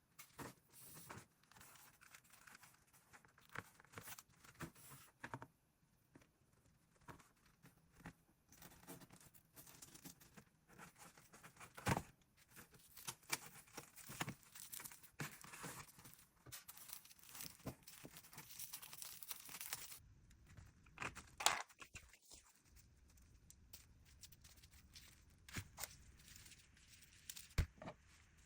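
Faint hand-crafting sounds: dry material being torn and crinkled, with irregular rustles and scattered small clicks and taps.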